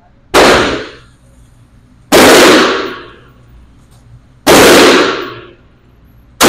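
Benelli M4 Tactical 12-gauge semi-automatic shotgun fired three times, roughly two seconds apart, each very loud shot trailed by an echoing decay in an indoor range. A fourth shot starts at the very end.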